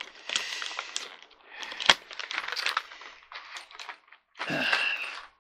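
A chair-assembly hardware packet crinkling and rattling as it is handled, with small metal parts clinking inside. There is a sharp click about two seconds in.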